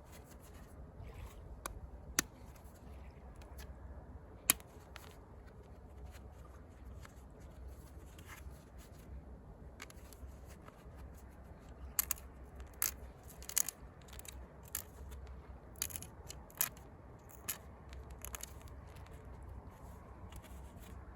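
Pressure flaking a chert arrowhead with a moose-antler tine: scattered sharp clicks as small retouch flakes snap off the edge, with faint scraping between them and a steady low hum under it all.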